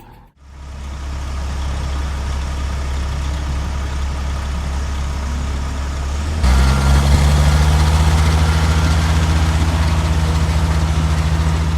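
Heavy diesel engine of construction machinery running steadily. About six seconds in, the sound changes abruptly to a louder, deeper engine note.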